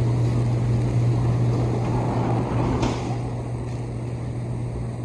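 Hot tub pump and jets running: a steady low hum under a rushing hiss, with a single sharp click about three seconds in, after which it is a little quieter.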